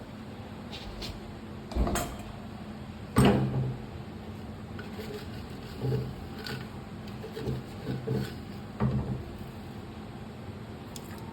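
A series of knocks and clatters from kitchen items being handled, spaced a second or more apart, the loudest about three seconds in, over a steady low hum.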